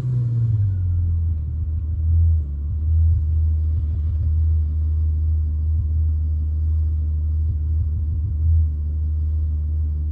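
Aston Martin DB7 engine idling just after a cold start, heard from inside the cabin. The pitch drops during the first second as the start-up flare dies away, then settles into a steady cold idle, briefly louder about two seconds in and again near the end.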